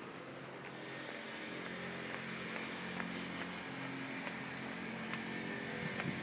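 Street traffic: a motor vehicle's engine hum that swells a little after the first second and holds steady, over general road noise.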